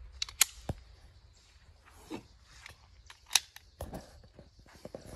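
Sharp metallic clicks and clacks of a semi-automatic pistol being worked by hand to clear a jam and chamber a round again. The two loudest clacks come about half a second in and just past three seconds in.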